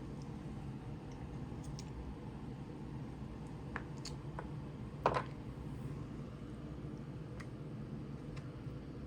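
Quiet eating sounds: a few small scattered clicks and one louder short sound about five seconds in, over a steady low hum.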